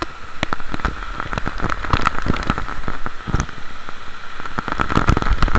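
River water splashing right against the camera, a dense patter of drops striking close to the microphone over a low rushing rumble.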